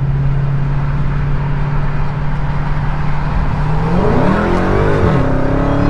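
Dodge Hellcat's supercharged 6.2-litre V8 accelerating hard from about 40 mph on a wheelspin test. It holds a steady drone, then the revs climb sharply about four seconds in and drop back near the end.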